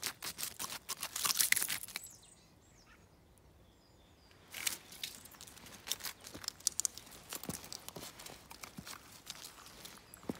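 Thin ice on a frozen puddle cracking and crunching under a Finnish lapphund's pawing: a dense run of crackles for about two seconds. After a quiet pause the dog's footsteps patter over wet leaves and gravel.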